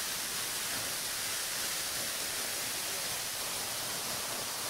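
Small waterfall falling down a rock face: a steady, even rushing hiss.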